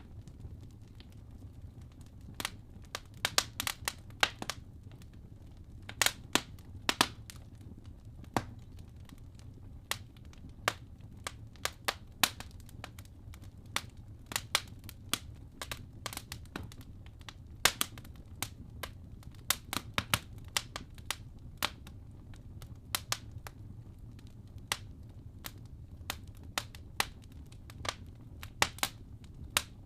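Wood fire burning in a fireplace: irregular sharp crackles and pops from the logs, some in quick clusters, over a steady low rumble of the flames.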